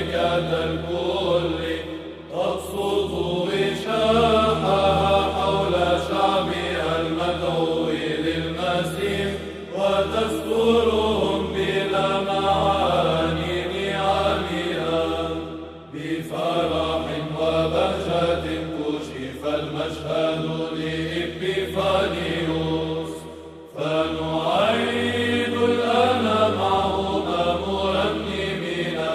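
Byzantine chant sung in Arabic in the fourth tone: a voice carries the hymn melody over a steady held drone note (ison). The phrases break briefly for breath about 2, 16 and 24 seconds in.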